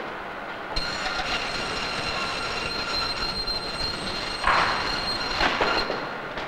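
Meat band saw running and cutting through a slab of meat: a steady high whine from the blade starts about a second in, with two louder rasping surges as the blade bites deeper, and stops shortly before the end.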